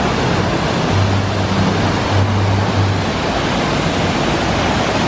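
Steady rush of falling and churning water from the waterfalls cascading down the water park's artificial volcano and the wave pool's surf.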